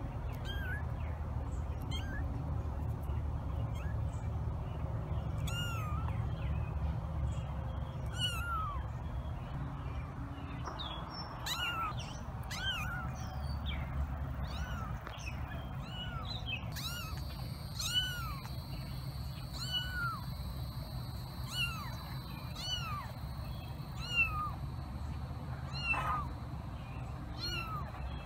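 A three-week-old kitten mewing over and over: short, high calls that rise and fall in pitch. They come only now and then at first, then about once a second from roughly halfway through.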